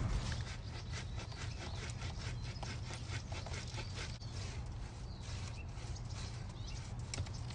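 Hand pruning saw cutting through a plum tree branch: quick, even back-and-forth strokes, about four or five a second, for the first three seconds or so, then slower and sparser strokes.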